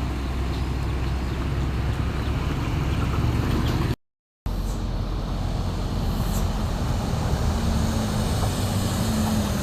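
Steady low rumble of road traffic, engines and tyres, with the sound dropping out completely for about half a second near the middle.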